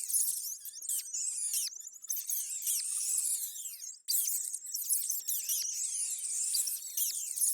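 A crowd of small animals chirping and squeaking in overlapping high-pitched calls, many of them falling in pitch, with a brief pause about four seconds in.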